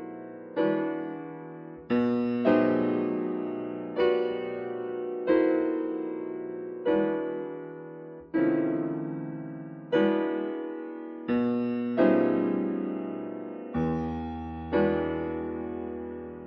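Solo piano playing a slow series of full, resonant chords, about a dozen of them. Each is struck loudly and left to ring and die away before the next. A deep bass note is added near the end.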